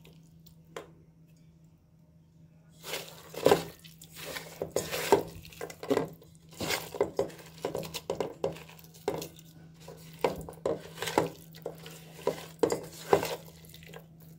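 A bare hand mixing marinated chicken pieces, onions and spices in a rice cooker's metal inner pot: irregular knocks and scrapes against the pot, starting about three seconds in.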